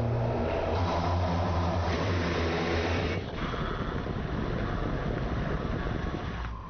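Car engine sound effect: a steady engine drone that changes abruptly to a different, lower-pitched engine tone about three seconds in, like edited cuts between recordings.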